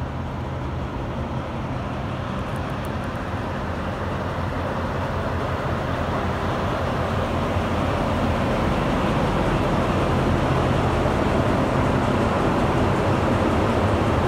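Diesel locomotives idling, a steady low engine rumble that grows gradually louder.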